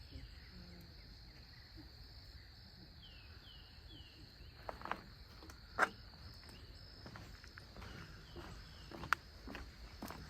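Outdoor woodland ambience: a steady high insect drone, with short falling bird calls in groups of about three. A few sharp clicks from footsteps on the trail, two of them loud, stand out over it.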